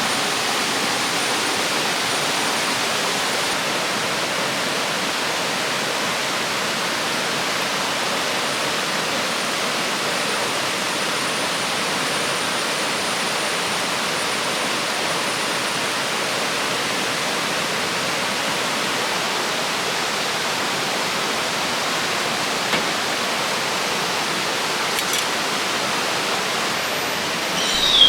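River water rushing steadily, an even unbroken roar.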